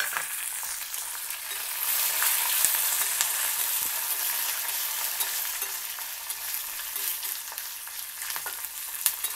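Green and dried red chillies frying in hot oil with lentils and mustard seeds in a steel pan, sizzling steadily, while a steel spatula stirs them with light scrapes and clicks against the pan. This is the tempering (popu) being fried until the chillies are done.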